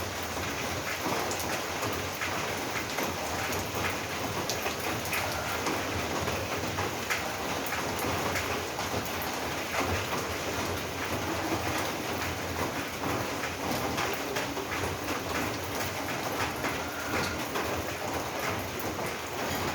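Steady rain falling on a roof, a dense patter of many small drop strikes.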